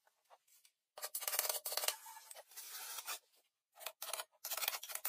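Hand saw cutting wood in fast rasping strokes, in bursts with short pauses between them.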